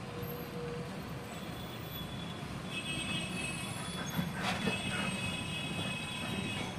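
Cabin noise of a KSRTC Sarige bus running at speed: steady engine and road rumble. A high-pitched squeal comes in about two and a half seconds in and holds for about four seconds, with a single click partway through.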